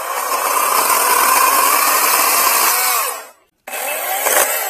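Badger 40V brushless cordless chainsaw cutting into a downed tree trunk, its electric motor running with a steady whine under load. About three seconds in the motor winds down and stops, then starts again a moment later.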